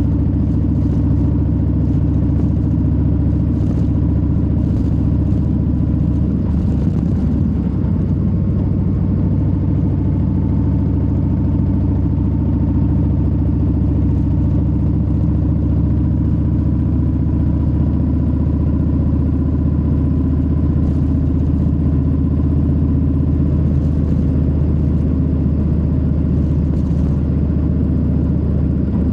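A 2022 Harley-Davidson Low Rider S's Milwaukee-Eight 117 V-twin running steadily under way, its exhaust note holding at an even, nearly constant pitch while cruising.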